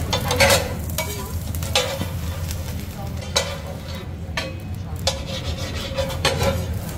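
Metal spatula scraping and clattering on a flat steel griddle, in short strokes every second or two, as bread is pressed, lifted and flipped. The bread sizzles lightly on the hot steel, over a steady low hum.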